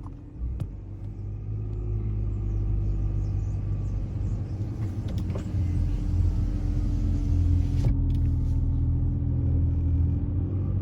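Car engine running slowly with a steady low rumble and a faint held hum that drifts a little in pitch.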